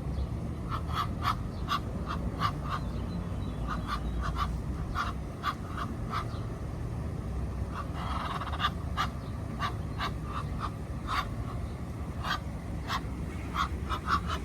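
Ducks quacking in short, repeated calls, one to three a second, over a steady low rumble.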